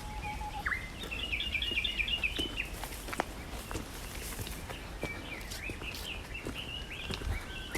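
A small bird singing a quick run of repeated high chirps, then more scattered calls near the end, over the footsteps of a hiker walking on a trail.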